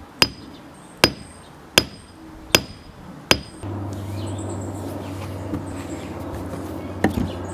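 Brick hammer striking a steel splitting wedge in a pine log: five sharp metallic blows about three-quarters of a second apart, each with a brief high ring. After the blows a steady low hum sets in, with a couple of lighter knocks near the end.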